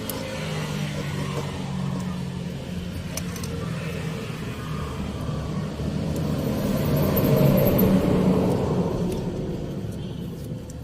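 Motor vehicle engine running, growing louder to a peak about seven seconds in and then fading.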